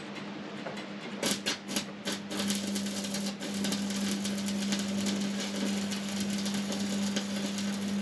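Welding arc crackling and sputtering in one continuous run of about seven seconds, starting with a few short sputters about a second in, over a steady electrical hum.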